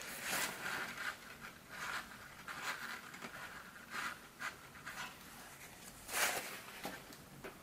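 Crumpled paper tissue pressed and rubbed on wet watercolour paper, a series of quiet brief rustles with the loudest about six seconds in: blotting off wet paint to soften hard edges.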